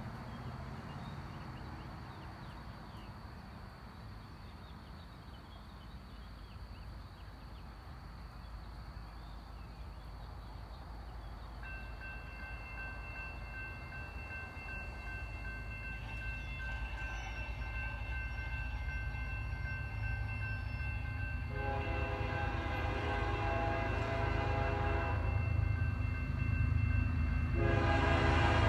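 A train approaching, its rumble growing steadily louder. About twelve seconds in, a grade crossing warning bell starts ringing steadily. The train's horn then sounds two long blasts, the second starting near the end.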